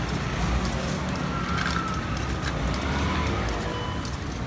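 Light clicks of a metal skewer against a cast-iron takoyaki pan as the octopus balls are turned, over a steady low rumble of traffic and background voices.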